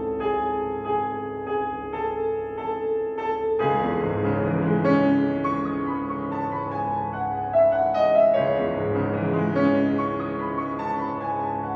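Grand piano played solo: a chord figure re-struck about twice a second over a held low note, then about four seconds in it opens into fuller, somewhat louder chords with a moving line on top.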